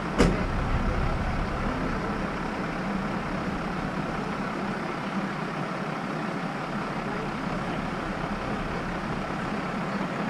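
Large vehicle engine idling steadily, with one sharp knock just after the start.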